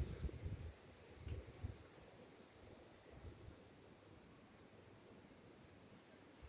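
Faint, steady high trill of a cricket, with a few faint low thumps in the first two seconds.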